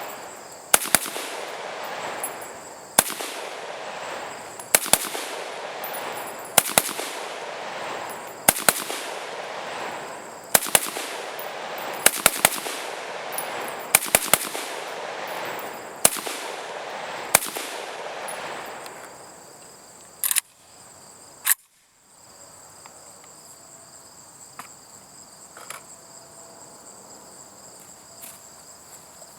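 Saiga .223 AK-pattern semi-automatic rifle firing 55-grain UMC rounds: about fifteen shots spaced a second or two apart, some in quick pairs and triples, each followed by a ringing echo, with the rifle cycling without a malfunction. The firing stops about two-thirds of the way in after two more sharp sounds, leaving insects trilling steadily.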